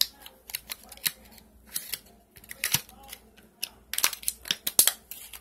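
Scattered sharp clicks and rustles of hands handling a plastic fidget spinner and its clear plastic wrapping, loudest near the end.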